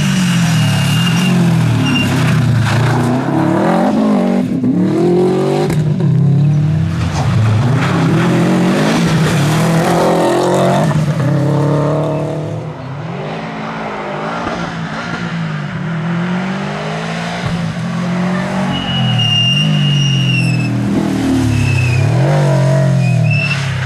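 Subaru WRX STI rally car's turbocharged flat-four engine revving hard and shifting gear as it drives a special stage, its pitch climbing and dropping again and again over several passes, quieter for a few seconds in the middle. Brief high-pitched squeals come near the start and again around two-thirds of the way through.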